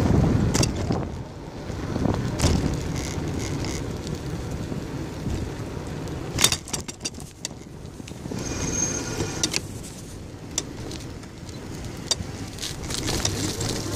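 Bicycle rolling on wet, rough asphalt: steady tyre and wind rumble with scattered rattles and clicks from the bike over bumps, a dense cluster of them about halfway through. A brief high-pitched squeal sounds a little after the middle.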